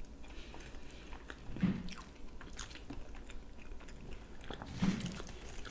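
Close-miked chewing of a bitten-off mouthful of sausage: soft wet mouth clicks and smacks, with a couple of brief low muffled mouth sounds.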